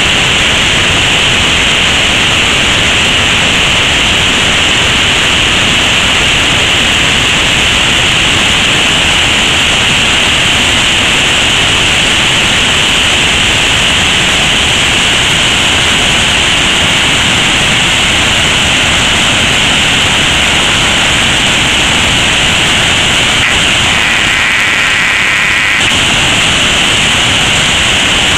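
Waterfall rushing, a loud, steady roar of falling water. Near the end a brief pitched sound lasting about two seconds cuts through it.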